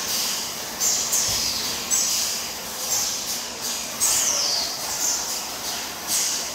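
Sauce-jar filling and packing line running, its machine cycle giving a short, high, falling chirp-like hiss about once a second over steady machine noise.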